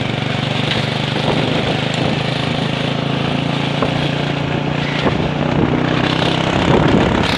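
Small engine of a moving two-wheeler running steadily under way, heard from the pillion seat, with wind and road noise mixed in.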